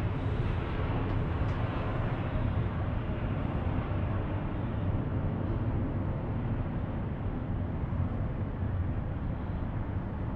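Steady low rumble and hiss inside a moving cable car cabin, with no distinct knocks or events.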